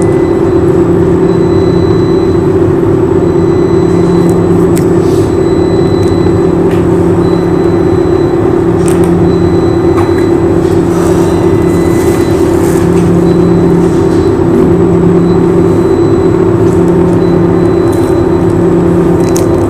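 A loud, steady machine hum, with a lower drone that comes and goes every second or two.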